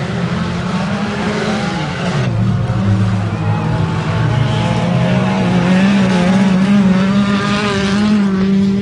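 Engines of several small crash-race cars of up to 1500 cc running hard and revving as they race around a dirt track. The engine note climbs about a third of the way in and then holds steady.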